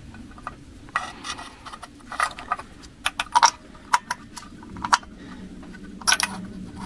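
Spark plug lead boots on a GAZ-66's V8 being wiggled and twisted on the plugs by hand, giving a run of small sharp clicks and rattles. This is a check for a loose plug terminal that does not grip the plug firmly.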